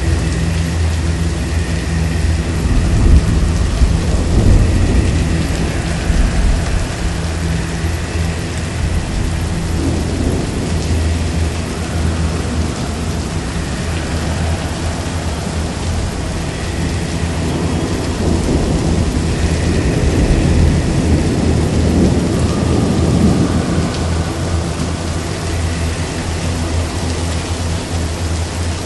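Heavy rain with rolling thunder, the deep rumble swelling a few seconds in and again about twenty seconds in.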